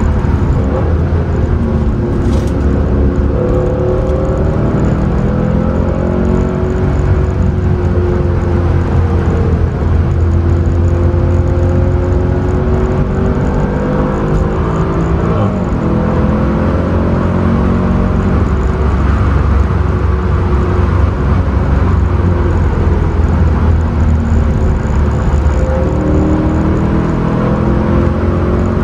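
Mercedes C63 AMG's V8 engine heard from inside the cabin while driving on track, a deep steady drone with road noise underneath. The engine note rises and falls slowly as the speed changes, with a brief break about halfway through.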